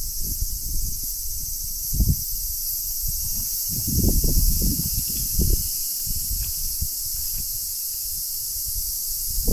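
Wind gusting on the microphone in uneven low rumbles, strongest about two seconds in and again from about four to five and a half seconds in, over a steady high chirring of insects.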